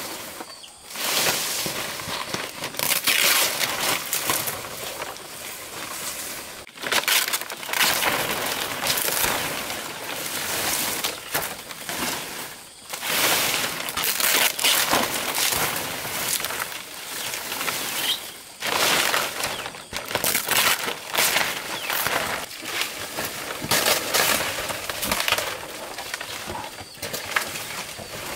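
Large fresh fan palm leaves rustling and crackling as they are bent, folded and gathered by hand, in irregular bursts with short lulls.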